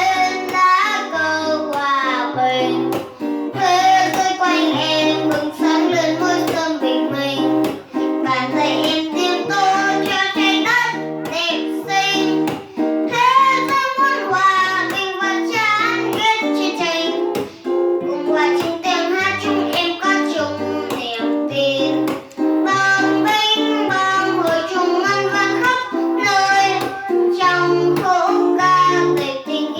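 A child singing a Vietnamese song with a wavering vibrato over instrumental accompaniment: plucked guitar and a steady, repeating bass line.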